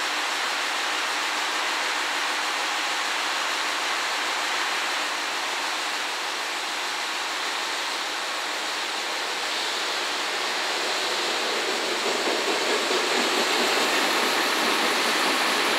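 Container freight train behind an EF210 electric locomotive rolling through the station, a steady rushing of steel wheels on the rails. It grows louder and rougher about twelve seconds in as the train comes close.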